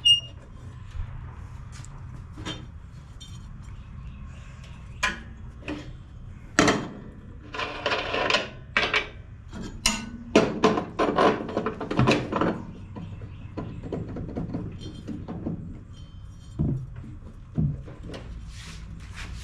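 Metal parts clinking and clanking as pulleys and washers are handled and fitted onto the mower deck's blade spindles: scattered sharp knocks, with two longer runs of rattling clatter in the middle.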